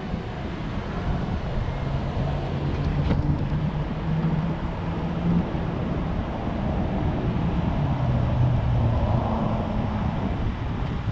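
A car engine running with road noise as the car moves slowly, its hum dropping a little in pitch about eight seconds in. There is a single sharp click about three seconds in.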